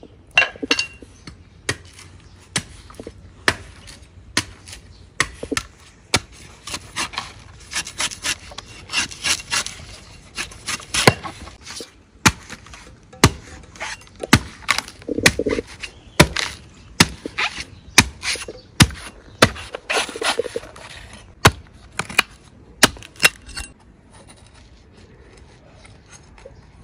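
A heavy cleaver chopping into the fibrous husk of a young coconut: a long run of sharp chops, about one or two a second, that stops near the end.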